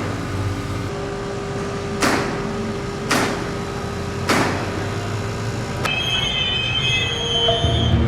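A Metro light-rail train passing: a steady rumble with a held tone, three sharp knocks about a second apart, then high wheel squeal over the last two seconds.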